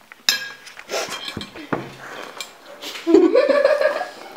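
Drinking glass clinking and knocking as it is handled on a table, with a ringing clink about a third of a second in. About three seconds in comes a short pitched vocal sound that rises in pitch.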